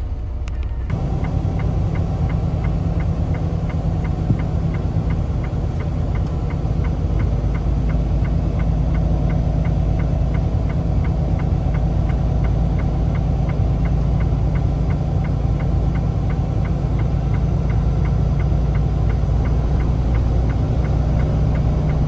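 Inside a moving semi truck's cab: the engine and road noise make a steady low rumble that sets in about a second in, with a light, regular ticking about twice a second on top.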